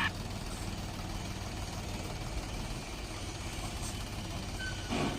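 A steady low engine hum, like a machine idling, with a short burst of noise near the end.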